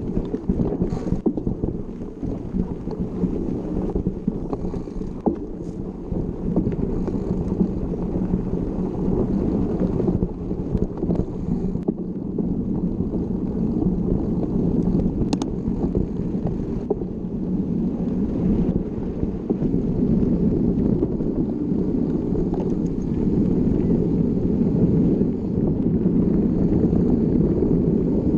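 Steady low rumble of wind buffeting the microphone of a camera carried on a moving mountain bike, growing a little louder over the second half.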